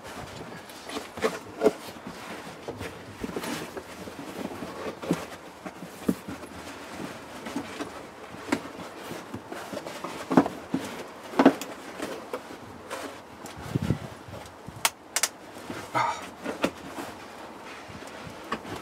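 Moulded car carpet being pulled, pressed and dragged into place over the bare metal floor of an Austin Maestro: irregular rustling and scraping, with scattered knocks and a couple of sharp clicks.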